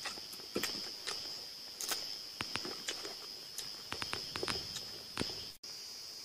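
A person eating close to the microphone: a run of sharp, irregular mouth clicks and smacks over a steady high insect drone. The clicks stop abruptly near the end, leaving only the insect drone.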